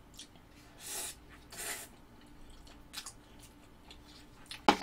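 A person slurping and chewing instant spaghetti noodles: two short slurps about a second in, then soft chewing, and a short loud knock near the end.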